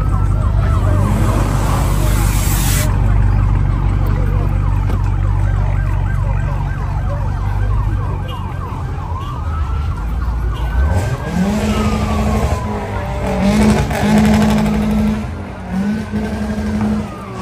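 Car engines running amid a street takeover crowd, with a siren wailing in slow rising and falling sweeps in the second half. About eleven seconds in, an engine revs up sharply and holds high, dipping briefly now and then.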